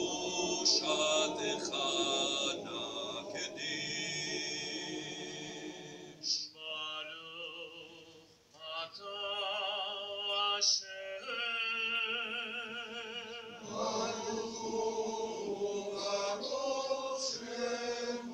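Cantor singing a Jewish liturgical piece with a male choir. The choir sings for the first few seconds, a solo tenor voice with wide vibrato carries the middle, and the choir comes back in near the end.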